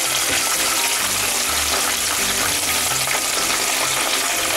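Chicken wings deep-frying in hot oil in a frying pan, sizzling steadily.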